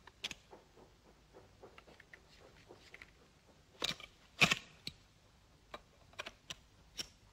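Scattered metal clicks and clacks of an ArmaLite AR-7 takedown rifle being assembled by hand, its parts fitted and locked together. The two loudest clacks come about four seconds in, close together.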